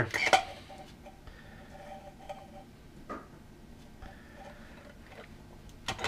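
Faint handling noise: a few light clicks and taps as hands work the cotton wick up through the metal lid of a small oil lamp jar.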